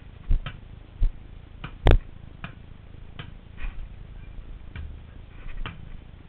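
A basketball knocking against the hoop and bouncing on paving stones: a series of sharp, unevenly spaced knocks, the loudest about two seconds in.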